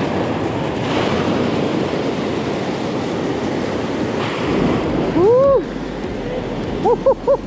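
Ocean surf washing and churning over lava rocks, with wind buffeting the microphone. About five seconds in a short rising-then-falling vocal sound cuts through, and a few quick ones follow near the end.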